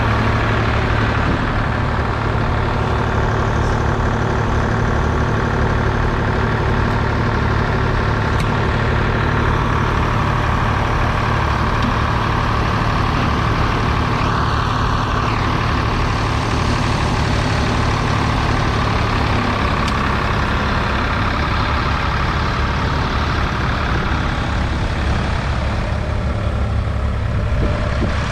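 Ford 3000 three-cylinder 2.9-litre diesel tractor engine running steadily while working with a two-furrow mounted plough.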